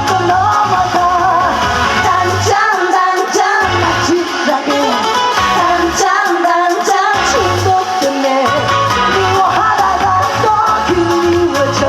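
Amplified trot song played over a PA, with a woman singing over a steady beat; the bass and beat drop out twice for a second or two.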